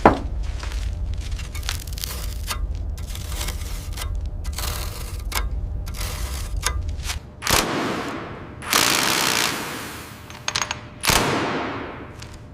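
Rapid, irregular clatter of knocks and clicks over a low rumble, opening with one sharp hit; the rumble stops about seven seconds in, and three bursts of hissing follow, the longest about a second and a half.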